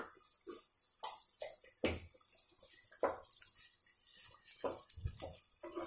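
Spoon stirring ginger-garlic paste into a thick, wet chicken curry in a cooking pot: irregular knocks and scrapes of the spoon against the pot with soft wet sloshing.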